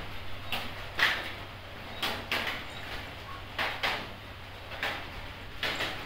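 A hand stroking a cat's fur close to the microphone: a string of short, soft brushing swishes at irregular intervals, over a low steady hum.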